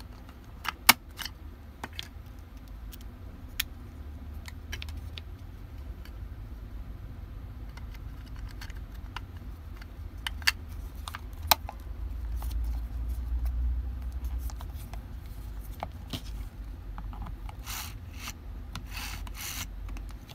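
Handling noise: scattered sharp clicks and rubbing, with a few short scrapes near the end, over a steady low rumble.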